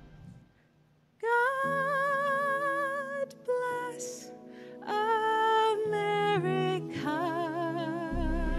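Accompaniment music for a song: after the previous music dies away and a moment of silence, a melody of long held notes with vibrato starts about a second in over sustained lower chords, and fuller, deeper accompaniment joins near the end.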